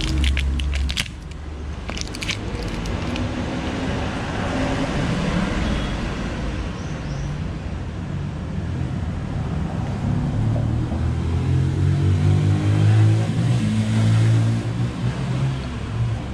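A motor vehicle's engine rumbling, its pitch shifting and loudest a few seconds before the end, after a few sharp clicks in the first seconds.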